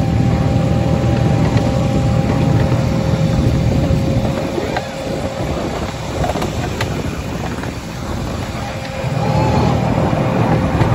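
Miniature railway locomotive running along the track: a steady low rumble with a faint, even high whine, and a few sharp clicks. The rumble eases off for a few seconds in the middle, then picks up again.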